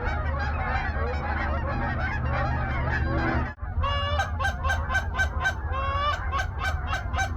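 A flock of Canada geese honking, many calls overlapping at first; after a brief break a few seconds in, clearer, closer honks follow in a quick even rhythm, over a steady low rumble.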